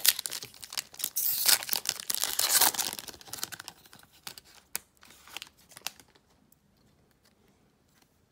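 2021 Donruss Football retail card pack wrapper being torn open and crinkled, loudest in the first three seconds, then lighter crinkling and clicks that fade out about six seconds in.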